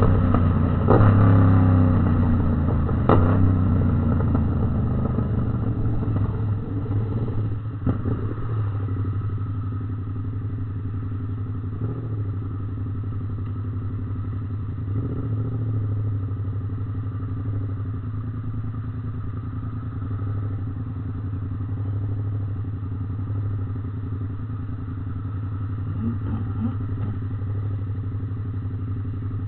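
Yamaha MT-07's parallel-twin engine. Its revs fall over the first few seconds, with a couple of sharp cracks, then it runs steadily at an even pitch.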